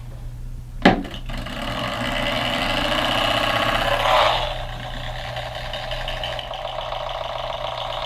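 Cheap ceramic space heater switched on with a click about a second in, its fan motor then whirring steadily as it runs laid on its back; the whir builds for a few seconds and settles slightly lower.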